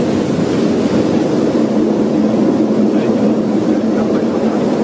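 Loud, steady cockpit noise of an airliner landing in a heavy rainstorm: the aircraft's engine and airflow noise mixed with rain on the windscreen, with no breaks.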